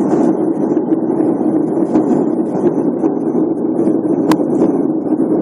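Steady engine and airflow noise inside an airliner's cabin in flight. A single short click about four seconds in.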